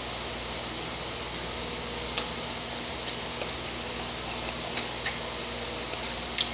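Eating chicken wings by hand: a few short, sharp clicks and smacks from chewing and picking the wings out of a foil-lined tray, the loudest near the middle and the end, over a steady background hiss.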